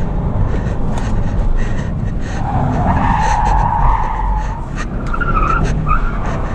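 Chevrolet Cruze diesel's tyres squealing as the car is driven hard through a corner, with the engine running underneath, heard from inside the cabin. A long squeal starts about two and a half seconds in, followed by a couple of shorter squeals.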